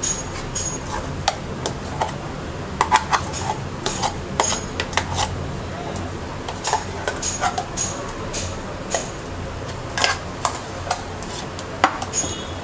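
A spoon knocking and scraping against a blender jar as blended spice paste is emptied into a mixing bowl: a run of irregular clinks and taps.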